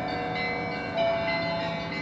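Church bells ringing: several bells of different pitch sound together, their tones overlapping and ringing on, with a fresh strike about a second in.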